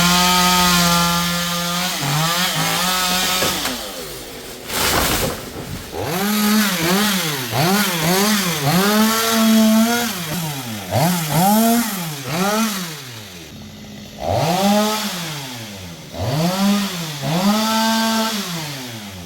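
Two-stroke chainsaw revved again and again, each time rising to full throttle, holding briefly and dropping back toward idle, about ten revs in all.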